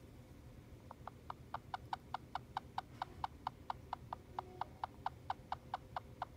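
Hamster squeaking a rapid, even run of short high 'kyu kyu' chirps, about four to five a second, starting about a second in.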